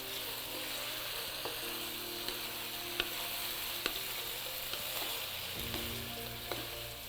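Diced chicken breast sautéing in olive oil in a pan, sizzling steadily, with a utensil stirring it and ticking against the pan a few times.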